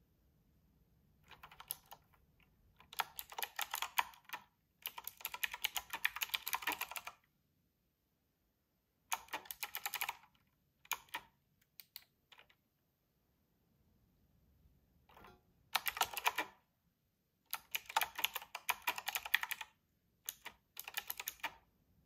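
Typing on a typewriter-style mechanical keyboard with round retro keycaps. Fast runs of clacking keystrokes come in bursts of one to two seconds, broken twice by pauses of a couple of seconds.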